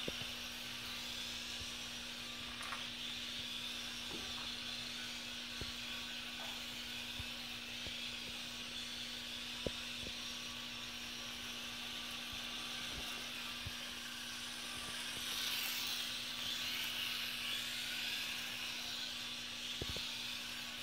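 Small electric RC motorcycle running laps, a steady high motor whine that grows louder for a few seconds about two-thirds of the way through as the bike comes closer, over a steady low hum.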